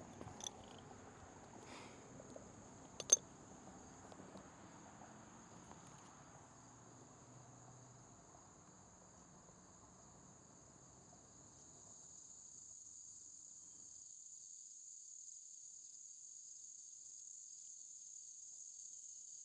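Crickets chirping steadily in a high, even drone that grows a little louder in the second half, with a single sharp click about three seconds in.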